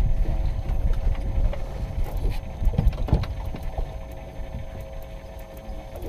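Boat ambience on the water: a low rumble with a faint steady hum, scattered clicks, and a couple of knocks about three seconds in; the rumble eases off in the second half.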